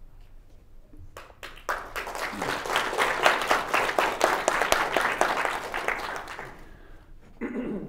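Audience applauding, starting about two seconds in, then dying away near the end.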